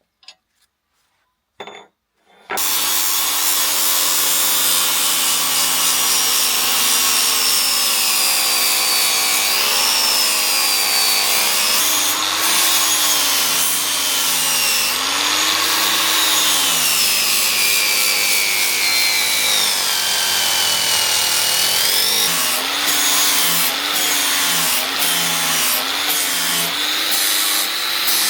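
A power tool's motor starts about two and a half seconds in and runs continuously, its pitch dipping and rising as the load on it changes. Two faint clicks come just before it.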